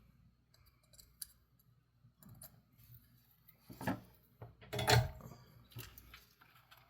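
Small clicks and scrapes of hand tools working on a toy's battery terminal during desoldering, with two louder sharp snaps about four and five seconds in.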